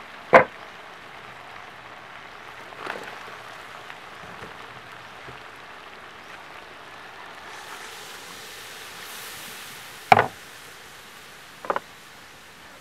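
Pork frying in a wok over a wood fire with a steady sizzle, and a few sharp knocks of cookware: a loud one right at the start and two more near the end, the last one doubled. About two-thirds of the way through, the hiss grows louder and brighter as coconut milk is poured into the hot pan.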